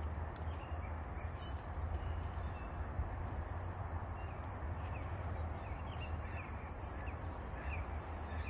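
Mangrove swamp ambience: many small birds giving short falling chirps over a steady low rumble, with a single sharp click about one and a half seconds in.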